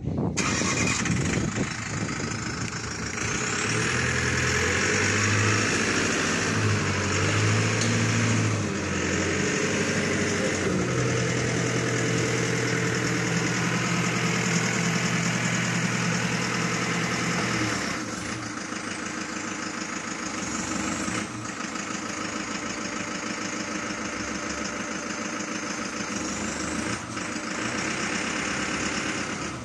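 Hangcha 5-ton forklift's engine starting at once and running, steady and louder with a low hum for the first two-thirds, then settling to a lower idle.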